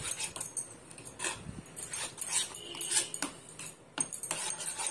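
Metal spoon scraping and clicking against a white ceramic bowl in irregular strokes while stirring spice powders into curd.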